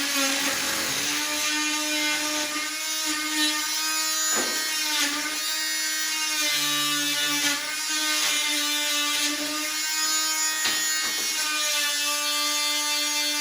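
Corded RIDGID JobMax oscillating multi-tool running with a steady buzz, with a few brief knocks.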